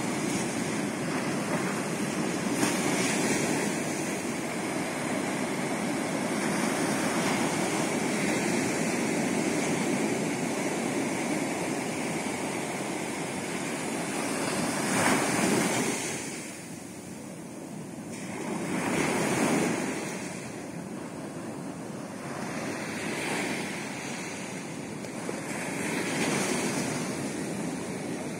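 Ocean surf: waves breaking and washing in, a steady rush that swells and fades every few seconds, loudest about halfway through.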